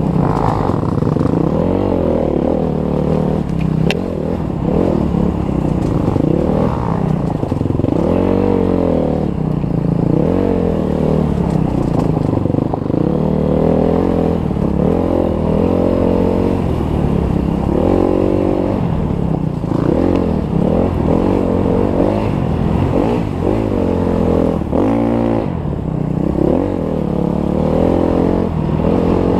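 Off-road motorcycle engine revving up and down over and over as the rider works the throttle on a climbing dirt trail, heard close from a helmet-mounted camera.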